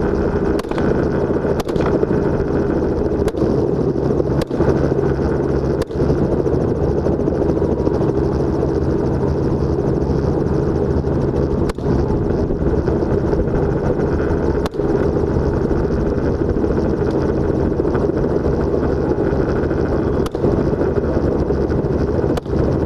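Helicopter running steadily in flight, an even, dense drone, broken by a handful of brief sharp clicks spread through it.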